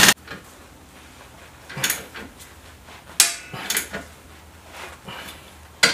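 Hand tools clinking and clanking on metal while the front suspension bolts are tightened with wrenches: a sharp click at the start, then a handful of separate metallic knocks and clinks about a second apart, the loudest a little past halfway.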